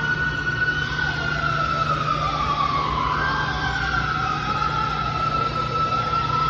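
Siren wailing, its pitch sliding slowly down and back up, over a steady low hum.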